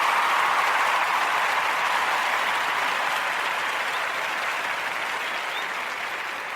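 Crowd applause, an even clatter of many hands that is loudest at the start and slowly fades away.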